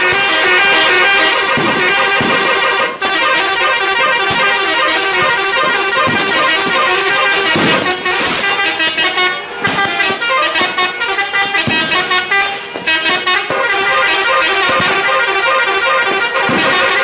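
Indonesian bus 'telolet' horn, a set of multi-tone air horns, playing a string of melodic toots that change pitch every fraction of a second, with a few brief breaks between phrases.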